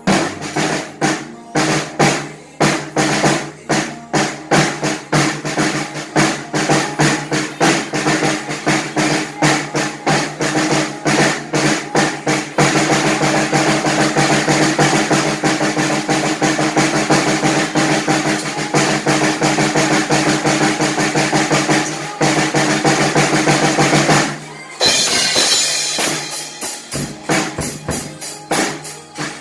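Pearl drum kit played over a backing song: a steady beat of bass drum, snare and cymbals that turns denser and louder about twelve seconds in, breaks off briefly near twenty-five seconds, then comes back with bright cymbal crashes.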